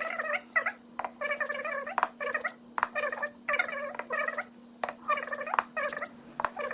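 Finger percussion on the back of the chest: sharp taps, often two at a time, roughly one to two a second, each followed by a short ringing note. This is a resonant note over normal lung, with no dullness, as the examiner works down the intercostal spaces. A faint steady hum runs underneath.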